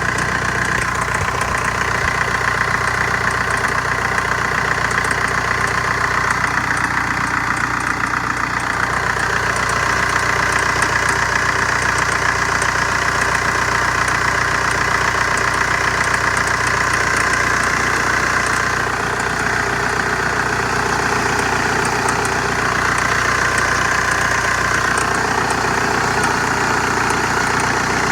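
2003 VW Jetta's ALH 1.9 TDI diesel engine idling steadily, with a strange metallic chirping over the running sound.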